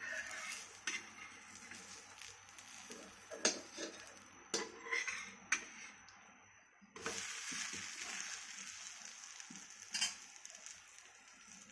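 A steel spatula scrapes and clicks against a dosa griddle as a pearl-millet dosa is loosened and flipped, with a light frying sizzle underneath. The sizzle drops away briefly around the middle and comes back.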